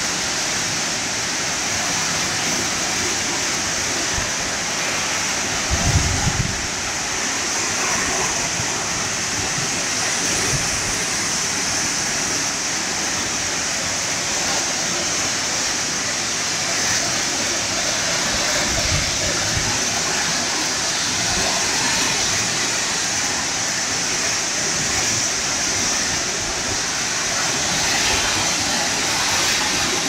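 Burney Falls' waterfall pouring into its plunge pool: a steady, even rush of falling water. A few short low thumps cut in, the loudest about six seconds in.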